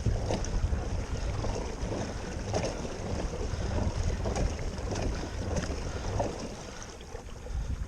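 Wind buffeting the microphone in a low rumble, with water splashing and lapping irregularly against the hull of a pedal-drive kayak under way.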